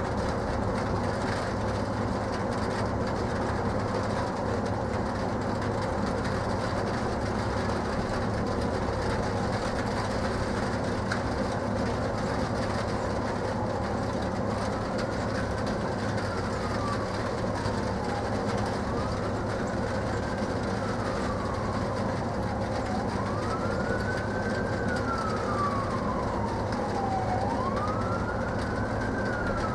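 A siren wailing, its pitch rising quickly and falling slowly about every four seconds, faint at first and growing louder over the last several seconds. Underneath is a steady low rumble with a hum.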